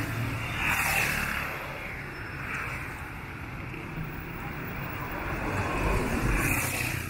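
City street traffic noise: a steady rumble of passing motor vehicles, swelling louder about a second in and again near the end.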